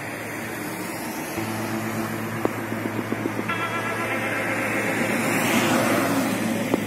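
City road traffic: a steady rush of passing cars and tyres, swelling as a van passes close near the end.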